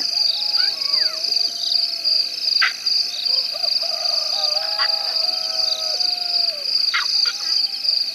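Night chorus of calling animals: a steady, high-pitched pulsing trill, with lower calls sliding up and down in pitch and a few short, sharp chirps.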